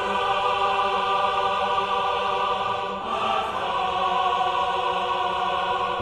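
Choir music with long held chords, shifting to a new chord about halfway through.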